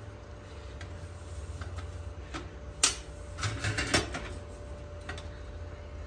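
Metal clicks and clinks from hands working a steel tilt-seat bracket and its bolts: a few light ticks, one sharp click about three seconds in, then a quick cluster of clinks, over a steady low hum.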